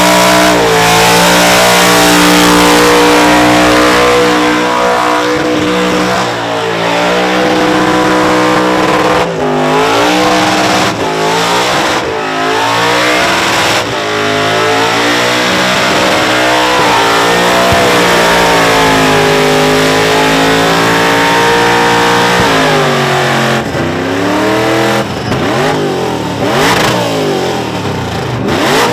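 Supercharged V8 of a VK Commodore held at high revs through a burnout, over the noise of its spinning rear tyres. Its pitch drops and climbs back several times as the throttle is worked, with the quickest swings near the end.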